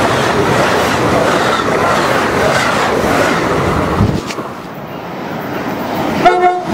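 Diesel passenger train's bilevel coaches rushing past at speed, a steady rumble and rush of wheels on the rails. About four seconds in the sound drops away, and near the end a train horn sounds briefly.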